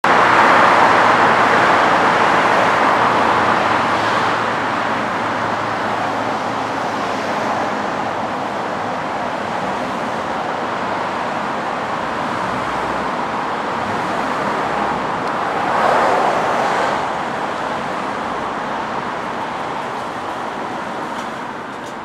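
Steady urban street traffic noise, with one vehicle passing more loudly about sixteen seconds in.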